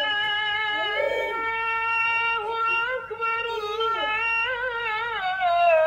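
Electronic Islamic prayer-learning tablet toy playing a recorded high-pitched singing voice through its small speaker, in long held notes with wavering ornaments.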